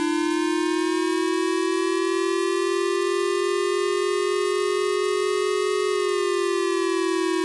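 Synthesized siren wail made of two slightly detuned buzzy tones that waver quickly against each other. It rises slowly in pitch for about six seconds, then begins to fall. It sounds as a mock tsunami warning siren.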